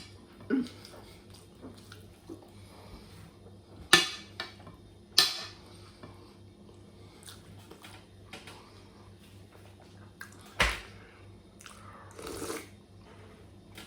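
Cutlery clinking against dishes during a meal: a handful of sharp knocks a few seconds apart, the loudest about ten seconds in, and a short scrape near the end.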